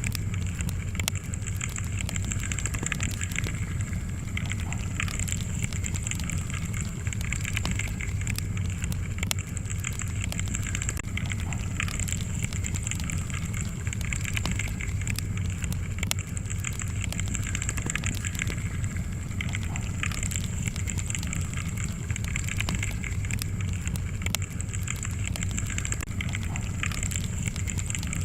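Log fire crackling, with many quick snaps and pops over a steady low background rush.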